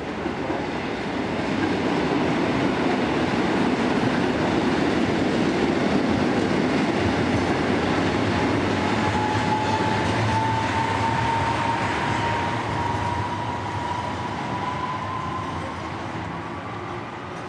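Rail traffic: a tram running along street tracks and passing close by, together with a red passenger train crossing a railway bridge, a steady rumble of wheels on rails that builds over the first couple of seconds and eases off near the end. About halfway through a thin whine sets in and slowly rises in pitch.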